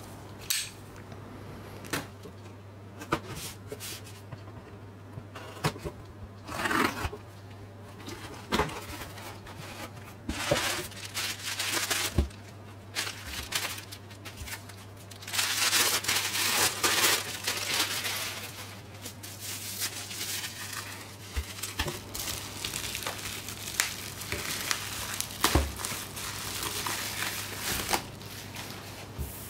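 A cardboard shipping box being opened and its contents unwrapped: paper tearing, and green wrapping paper crinkling and crumpling, loudest in a long rustle around the middle. Near the end, bubble wrap rustles as it is pulled off a Blu-ray case. Scattered taps and clicks sound throughout over a low steady hum.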